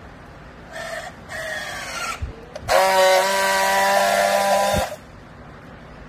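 Battery-powered handheld strapping tool working a plastic strap around a compressed bale of clothes. Its motor whines in two short bursts, then runs steadily and louder for about two seconds before stopping abruptly, as the tool tensions and seals the strap.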